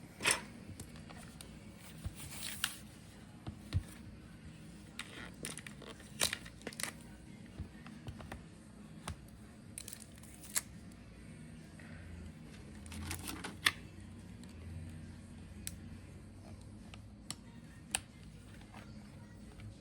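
Scattered sharp clicks, taps and brief rustles of a laptop and its parts being handled, the loudest click about 13–14 seconds in, over faint background music.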